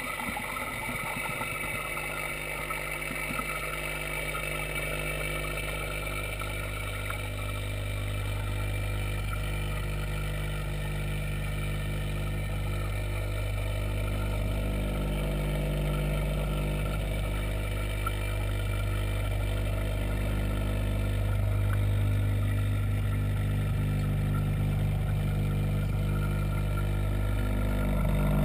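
Steady low mechanical hum of the aquaponics system's pump, heard through the water from inside the fish tank, growing slightly louder over time.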